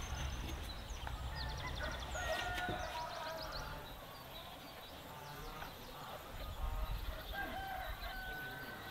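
Chickens calling and a rooster crowing, with a long held call near the end, and small birds chirping in quick high trills.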